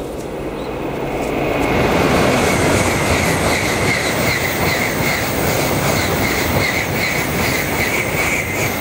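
Tokaido Shinkansen bullet train passing at high speed close by, just after coming out of a tunnel. A loud rushing of air and wheels builds over the first two seconds and then holds, with a high steady hiss and a quick regular pulsing as the cars go by.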